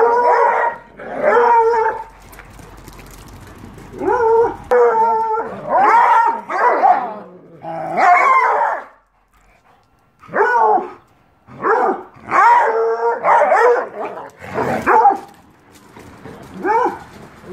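Dogs barking repeatedly in play, a run of short, drawn-out barks that stops for about a second roughly nine seconds in, then starts again.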